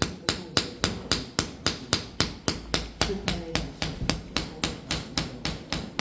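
A hand slapping a person's upper back in a steady, even rhythm, about three sharp slaps a second: paida slap therapy to raise sha.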